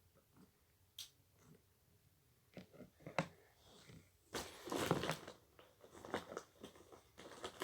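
Close-up handling noises: scattered sharp clicks and sticky crackles, with a denser burst of rustling about four and a half seconds in.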